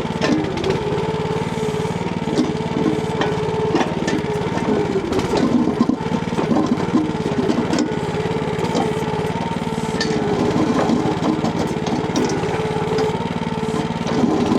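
Small engine of a Timco ATV-570R backhoe running steadily, its note wavering under load for a few seconds in the middle, with scattered knocks and clatters throughout.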